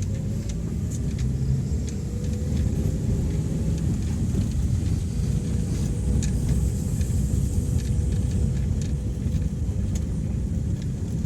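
Vehicle driving along a road: a steady low rumble of engine and tyres, with faint light rattles over it.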